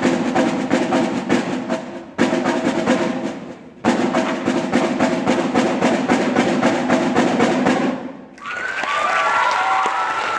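Fast drumming on a drum kit in three bursts, with brief breaks about two and four seconds in. The drumming stops about eight seconds in and an audience cheers and shouts.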